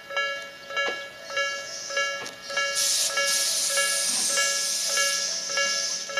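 Japanese level-crossing electronic warning bell, the slow-tempo 'Nikko' tone, ringing with an even repeating ding a little under twice a second. From about two and a half seconds in, a loud hiss from a passing train rises over the bell for about three seconds, then fades back.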